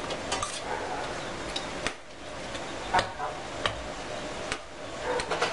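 A metal spoon tossing a corn salad in a stainless steel bowl: scraping with irregular clinks of spoon on bowl, one louder clink about three seconds in.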